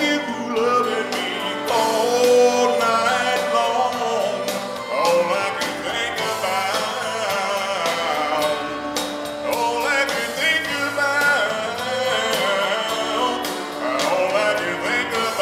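Male voice singing a country song into a handheld microphone over backing music.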